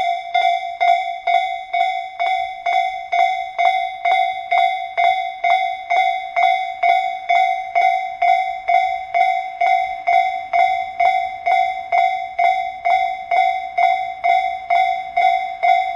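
Japanese railway level-crossing warning bell ringing: an electronic 'kan-kan' struck evenly about two and a half times a second, each strike ringing on the same fixed tones. It signals that the crossing is closed for a train. A low rumble joins it near the end.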